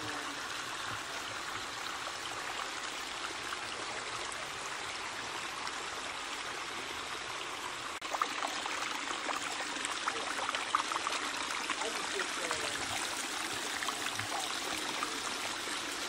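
Water splashing and trickling down the rocks of a small backyard pondless waterfall, a steady rushing splash that gets a little louder about halfway through.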